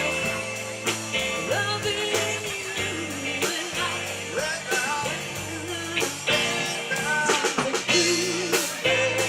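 Rock-and-roll song with a singing voice over guitar, bass and a steady drum beat.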